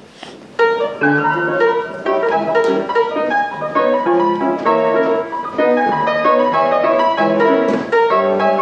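Pianola (pedal-pumped player piano) playing a paper music roll, with many notes in quick chords beginning about half a second in after a brief scuffle of noise. It is the instrument's first run after its bellows were repaired and a couple of sticky valves freed.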